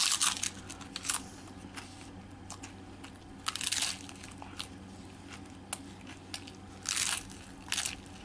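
Crunching bites into a crisp, oven-toasted hard taco shell, with chewing between them. Loud crunches come at the start, about a second in, around three and a half seconds in, and twice near the end.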